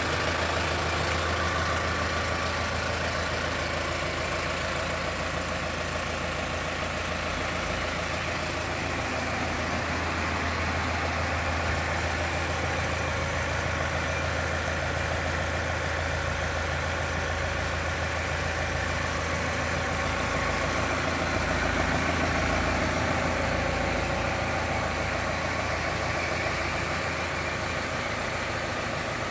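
Kubota M5091 tractor's four-cylinder diesel engine idling steadily.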